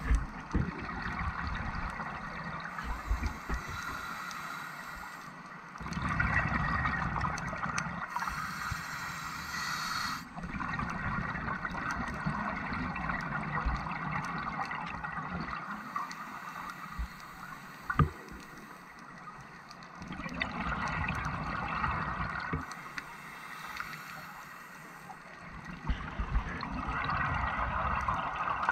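Scuba diver's regulator breathing heard underwater: exhaled bubbles rush and gurgle in swells every several seconds, with quieter stretches between breaths. One sharp click about two-thirds of the way through.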